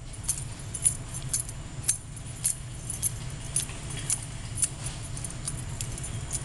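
Bunch of keys being flipped and jangled in the hand, a bright metallic jingle about twice a second at a slightly uneven pace.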